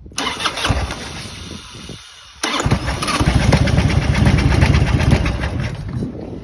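1997 Harley-Davidson FLHR's Evolution V-twin being cranked by the starter with a rapid, even rhythm, catching about two and a half seconds in and running loudly, then dropping back near the end.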